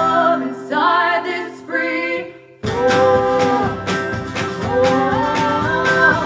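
Live acoustic folk song: female voices singing a sustained, wavering line over guitar. About two and a half seconds in, the music briefly drops away, then strummed acoustic guitar comes back in with voices singing in harmony.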